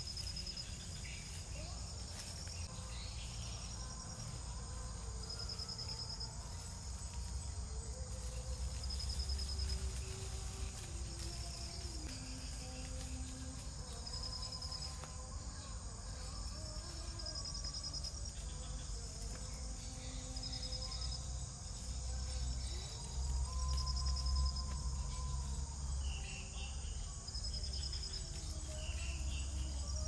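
Forest insect chorus: a steady high-pitched drone, with a short buzzy trill coming back every two to three seconds.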